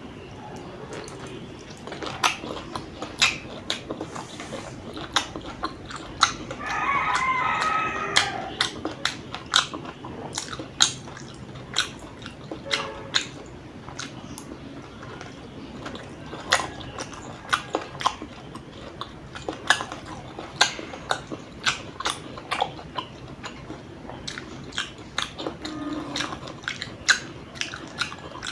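Close-miked mouth sounds of a person biting and chewing a sausage: a steady run of wet clicks and smacks. A short wavering hum comes about seven seconds in.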